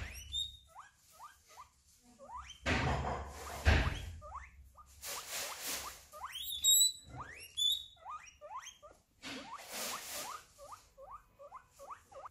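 Guinea pig wheeking: runs of short squeaks that rise in pitch, several a second, broken by a few longer, louder squeals. This is a call guinea pigs make when they want attention.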